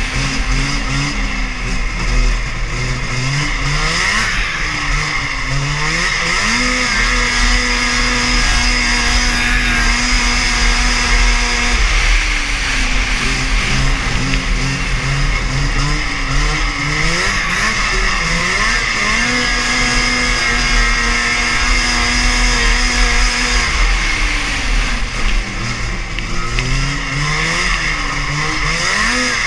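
Vintage Yamaha two-stroke snowmobile engine running hard under race throttle, heard from the seat. Its pitch holds steady on the straights, then falls away and climbs again about four times as the throttle comes off and back on, over a steady low rumble of wind on the microphone.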